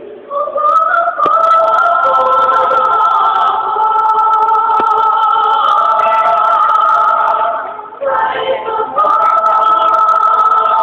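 Choir singing in harmony, holding a long chord, with a brief drop about two-thirds of the way through before the next held chord.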